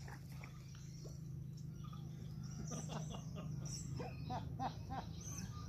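Birds chirping, a quick series of short calls at about three a second in the second half, over a steady low hum.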